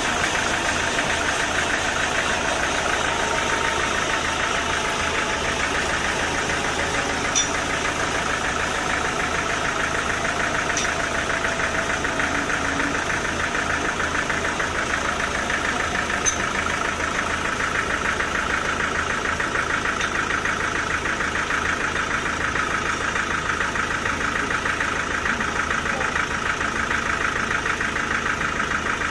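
Sawmill machinery running steadily with an engine-like drone and slow small shifts in pitch, with a few faint ticks.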